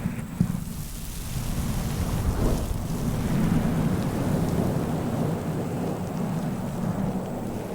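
Close-miked wave sound for ASMR: a low, rumbling swish that swells and eases, like water sloshing.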